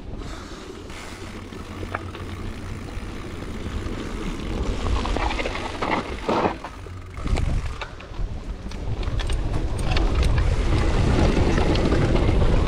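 Downhill mountain bike rolling down a gravel and dirt trail: tyres crunching, the bike rattling and wind buffeting the microphone, growing louder as it picks up speed, with scattered sharp clicks from stones and the bike.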